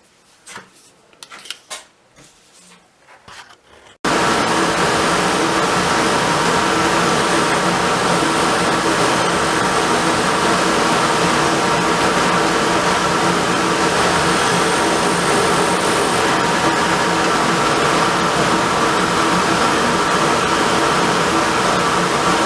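Wood lathe running steadily at speed, starting suddenly about four seconds in after a few light knocks.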